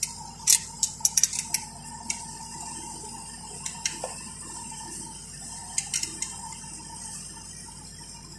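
Steel wrench clinking against the alternator bracket and its bolt as the bolt is worked: a scatter of sharp metal clinks, most in the first two seconds and a few more later, over a faint steady hum.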